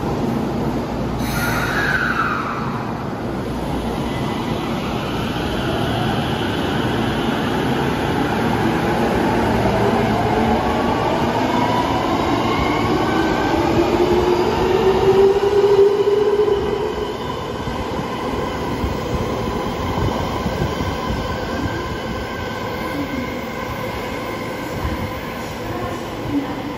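Tokyo Metro Tozai Line electric train pulling out of an underground station: its motors whine in several tones that rise in pitch as it picks up speed. The sound is loudest a little past halfway, then eases off as the train leaves.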